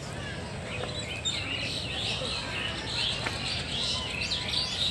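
Many small birds chirping at once in a dense, overlapping chatter that gets busier about a second in.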